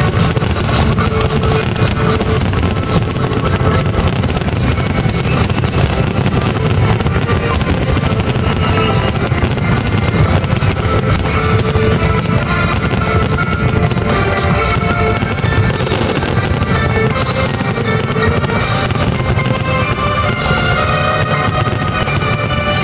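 Fireworks bursting and crackling without a break, under loud music with a steady melody.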